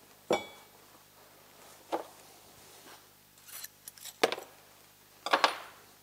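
Metal hand tool clinking and knocking against snowmobile bogie wheels clamped in a steel vise while the old grease nipples are taken off: several separate sharp knocks, the first with a short metallic ring.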